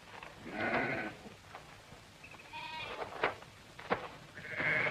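Sheep bleating in a flock: about three separate bleats, spread out a second or two apart.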